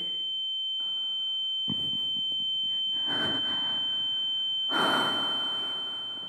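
A steady high-pitched ringing tone, a tinnitus-style ear-ringing sound effect, with several rushes of noise beneath it, the loudest a little under five seconds in. The ringing fades out near the end.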